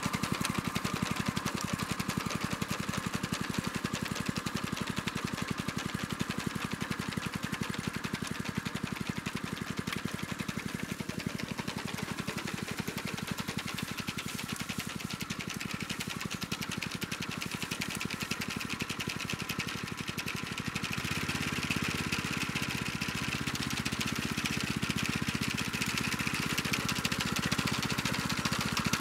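Small engine of a homemade walk-behind sickle bar mower running steadily as it mows through weeds and grass. It gets fainter in the middle and louder again from about three quarters of the way in.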